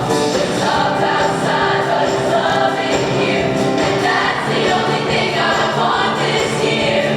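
A choir singing, many voices holding sustained notes that change together.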